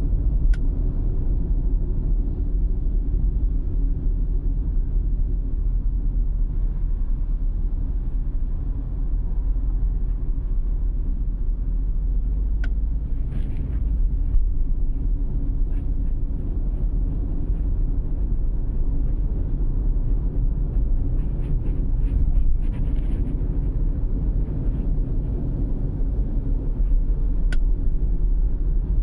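Low road and engine rumble inside a moving 2020 Lexus NX200's cabin, with a sharp latch-like click from the seat three times: about half a second in, about twelve seconds in, and near the end. The owner ties the click to the seat's weight shifting as he presses the accelerator or lets off to brake.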